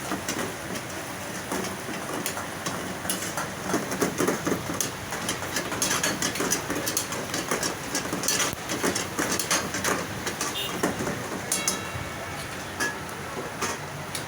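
Kitchen clatter: many sharp metal clinks and knocks of cooking utensils, busiest in the middle, over a steady background din with voices.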